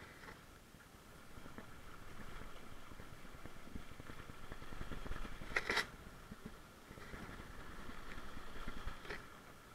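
Muffled rush of water and wind around a Wayfarer sailing dinghy under way, swelling twice, with a sharp knock about five and a half seconds in and a lighter one near the end.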